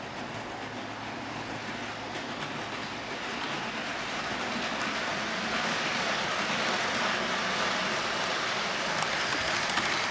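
HO scale model train, an electric locomotive pulling three passenger cars, running on its track toward the listener and past, its wheels and motor making a steady rolling whir that grows louder and peaks near the end, with a few sharp clicks about nine seconds in.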